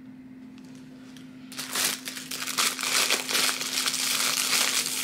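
Clear plastic packaging bag crinkling as it is handled, starting about one and a half seconds in and going on steadily.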